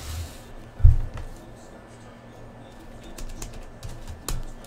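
Foil trading-card packs being handled and set out on a table: a thump about a second in, a sharper tap near the end, and light rustling and tapping of the packs between.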